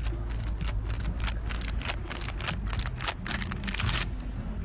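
Cat clambering on a chain-link fence: irregular light clicks and rattles of the wire mesh, many per second, over a steady low rumble.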